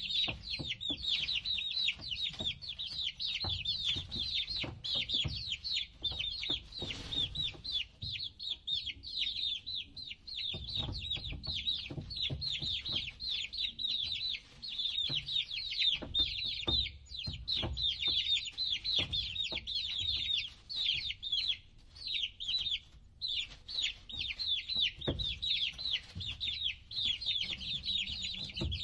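A brood of baby chicks peeping continuously: a dense stream of short, high, falling peeps from many birds at once, with a low rumble and occasional soft knocks underneath.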